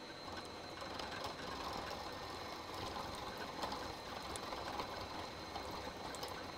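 Milling machine running with its end mill cutting away the Acme thread on an internal threading-tool blank, down to the center line. A steady machining noise with a thin high whine and scattered sharp ticks, picking up slightly shortly after the start.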